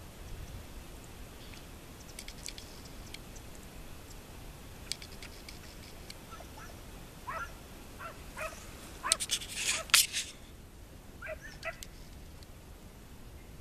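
Short animal calls in small runs in the second half, over a faint outdoor background, with a cluster of sharp clicks about nine to ten seconds in as the loudest sound.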